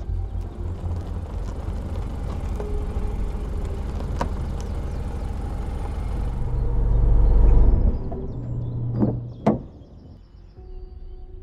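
A car drives up onto a driveway, its engine and tyres growing louder and then stopping about eight seconds in. About a second later come two sharp clicks, half a second apart, as the driver's door is opened.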